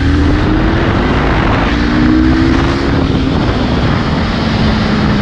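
Motorcycle engine pulling away on the road, its pitch climbing for about three seconds and then falling to a lower steady note, under loud wind rush on a helmet-mounted microphone.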